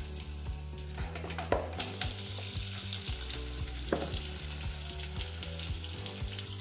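Sliced potato rounds sizzling and frying in hot oil in a metal kadhai, a steady hiss. A couple of sharper knocks come about a second and a half in and near four seconds, as more slices go in.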